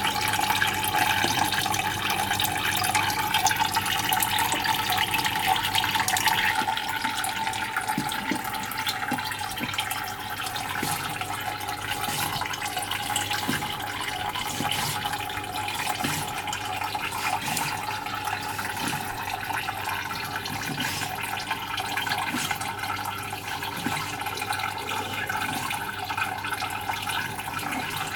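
Water running steadily from a tap, a little louder for the first six seconds. From about eight seconds in, soft knocks come roughly once a second as a knife works a raw sea cucumber on a plastic cutting board.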